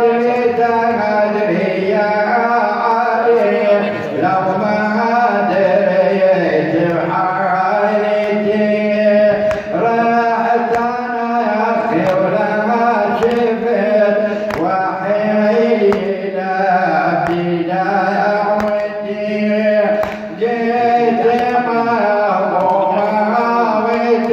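A man chanting an Arabic Shia noha (lament) solo in long, ornamented melodic lines, with a steady low tone beneath the voice.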